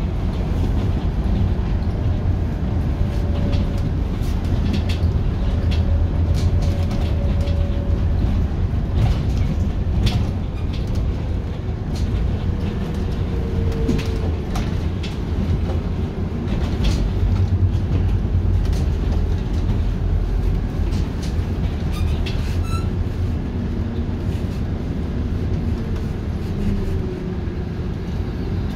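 Inside a Scania articulated city bus under way: the engine and tyres give a steady low rumble, with scattered rattles and clicks from the cabin.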